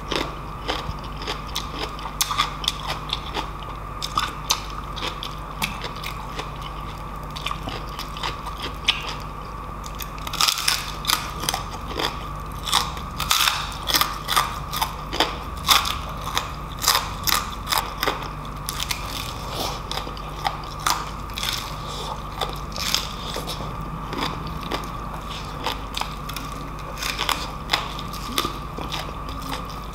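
Biting and chewing of crispy deep-fried pork knuckle skin: irregular sharp crunches, densest from about a third of the way in until a little past the middle and again near the end. A steady background hum runs underneath.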